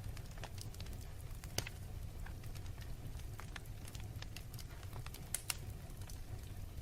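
Wood fire burning in a fireplace: a steady low rumble of the flames with scattered crackles and pops of burning logs, a sharper pop about a second and a half in and two close together near the end.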